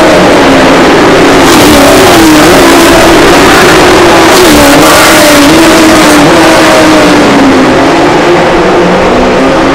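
Several Super 6000 stock cars' 6.2-litre V8 racing engines running through a corner, the engine notes rising and falling as the drivers come off and back on the throttle. The sound eases a little near the end as the last car pulls away.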